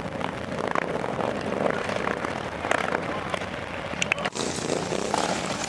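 Motorcycles in a large procession rumbling steadily past, mixed with cars driving by close. A couple of sharp clicks come about four seconds in.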